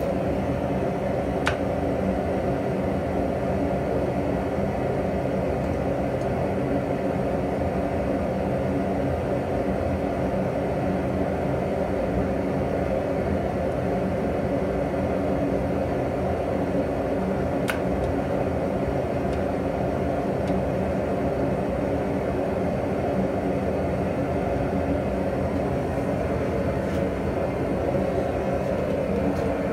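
Handheld electric leaf blower blowing air into a forge, running with a steady whirring hum.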